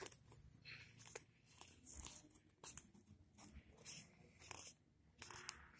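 Faint, scattered rustling and scraping of fingertips moving over a glossy catalogue page.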